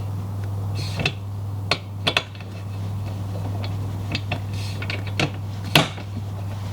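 Scattered sharp metallic clicks and clinks of a bolt being done up through the joiner of two aluminium roof-rack side bars, with the parts and tool knocking together, over a steady low hum.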